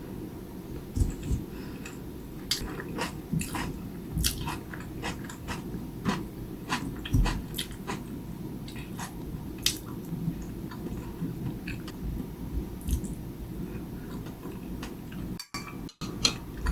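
A person eating close to the microphone: chewing and biting, with frequent small crisp clicks of mouth and utensil sounds at an uneven pace. The sound drops out briefly twice near the end.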